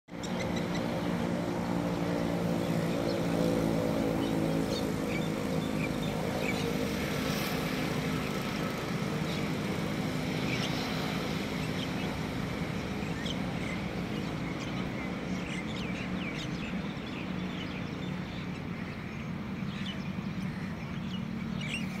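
Birds giving scattered short chirps over a steady low hum, which is strongest in the first half and eases later.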